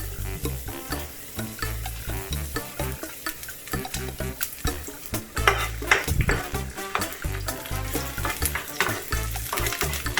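Food sizzling in oil in a frying pan while being stirred, with a run of short scrapes and knocks from the spatula, loudest around the middle. Light background music plays underneath.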